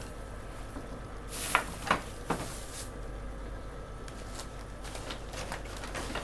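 Hands rummaging through hand tools on a cluttered workbench in search of a tape measure: three sharp knocks of tools clattering together about a second and a half to two and a half seconds in, with light rustling around them.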